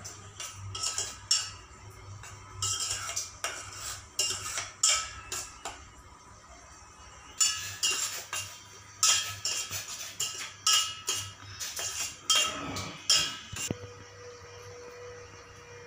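A metal spoon scraping and clinking against a stainless steel pot while stirring grated cucumber as it heats. Runs of quick strokes, a pause about six seconds in, then more strokes that stop about thirteen seconds in.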